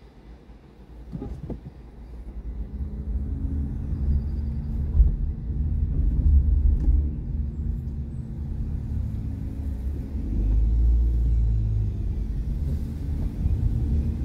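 Car pulling away from a standstill and driving on, heard from inside the cabin. Low engine and road rumble builds over the first two seconds, then stays steady, with a louder swell about ten seconds in.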